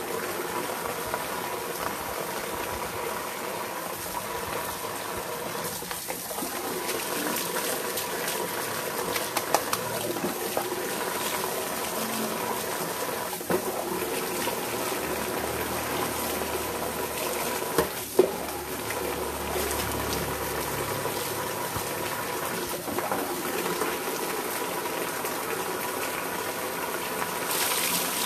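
Water being scooped from a plastic bucket and poured over a dog, splashing onto its coat and the wet concrete, with a steady run of water and a few brief knocks. A louder pour and splash comes near the end.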